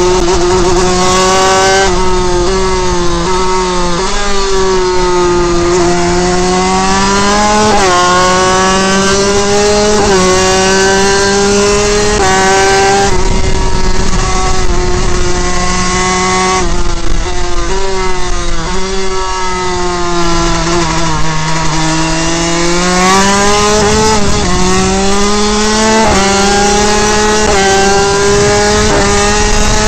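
Honda RS125 two-stroke single-cylinder race engine at high revs, its pitch repeatedly climbing and dropping as the bike accelerates, shifts and slows, with a longer drop in pitch about two-thirds of the way through before it climbs again. Wind rushes over the onboard microphone throughout.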